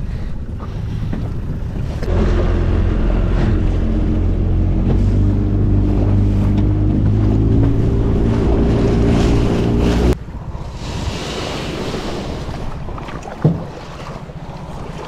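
A small outboard motor on an inflatable dinghy runs steadily under way, with wind buffeting the microphone. About ten seconds in, the engine cuts out abruptly, leaving wind and water noise with a single thump near the end.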